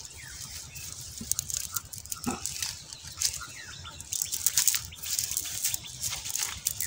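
Cast net mesh rustling and crackling against grass as hands pick small fish out of it: a run of irregular small clicks and scrapes, busiest about four to five seconds in.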